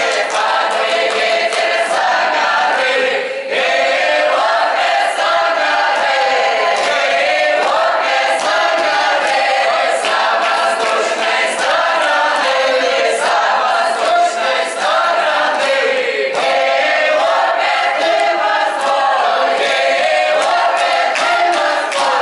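Russian folk ensemble of mixed men's and women's voices singing a lively village dance song (plyasovaya) unaccompanied, each phrase ending in a downward slide, with short sharp clicks through it.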